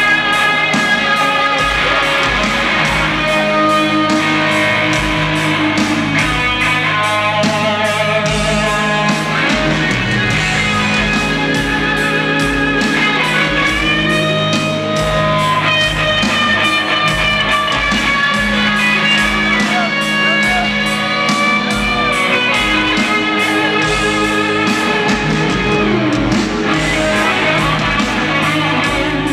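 Live rock band playing an instrumental passage led by an electric guitar from a Les Paul-style guitar, its melody held with vibrato and a long upward bend about halfway through, over steady bass and drums.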